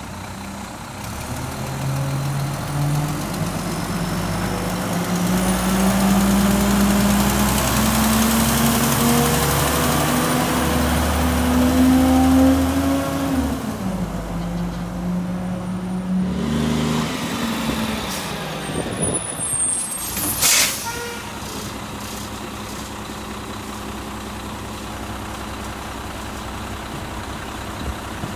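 Garbage truck's diesel engine climbing in pitch and running hard for about twelve seconds, then dropping back and surging briefly again. About twenty seconds in there is a short sharp hiss of the air brakes, and then the engine runs on more quietly.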